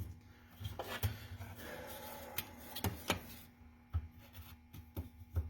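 Laser-cut MDF pieces being slid into slots and seated by hand: soft rubbing of wood on wood with several light clicks and taps as the tabs go home.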